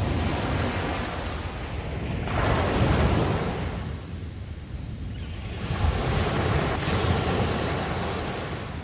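Sea waves breaking and washing in, swelling and falling back in surges about every two to three seconds.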